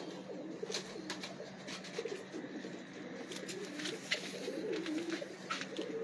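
Domestic pigeons cooing on and off throughout, with a few light clicks and rustles from a pigeon being held and its wing spread.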